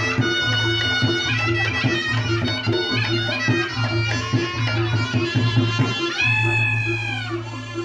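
Reog Ponorogo ensemble music: a reedy slompret shawm plays the melody over a steady, even beat of kendang drum and gong percussion. About six seconds in, the shawm's note slides down in pitch.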